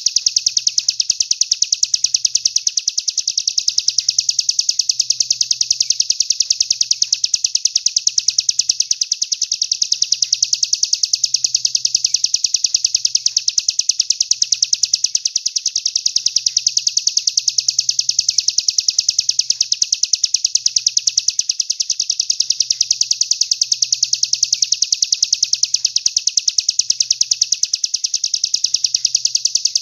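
Songbird masteran recording: a continuous high-pitched trill of very fast, evenly repeated notes that carries on without a break.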